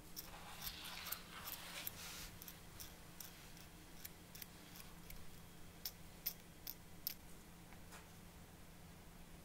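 Sanding stick rasping on a small plastic model part for about two seconds. Then come light scrapes and scattered sharp clicks as a hobby knife trims a tiny plastic steering wheel.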